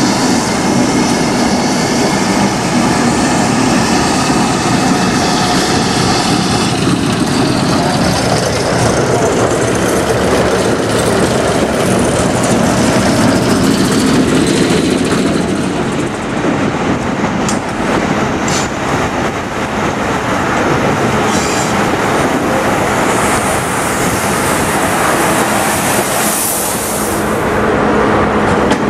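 Railway train running along the track: a steady rumble of wheels on rail, with a few sharp clicks about two-thirds of the way through.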